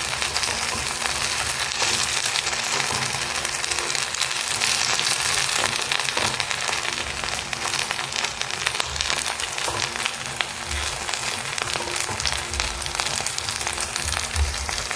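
Batter-coated black tuna pieces shallow-frying in hot coconut oil, sizzling and crackling steadily with a dense spatter of small pops.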